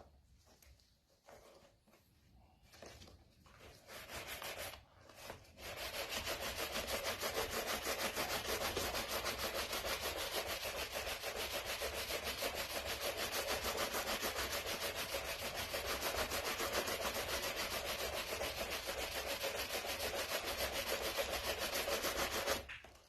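Quick back-and-forth rubbing on a dyed leather pouch as it is buffed by hand. A few scattered strokes come first. About five seconds in, a fast, steady run of strokes starts and goes on until it stops abruptly near the end.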